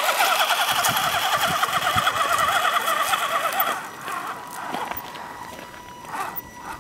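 Axial SCX10 RC crawler's electric motor and gearbox whining, wavering quickly in pitch, then dropping to a quieter steady whine about four seconds in, with a few clicks of tyres on rock.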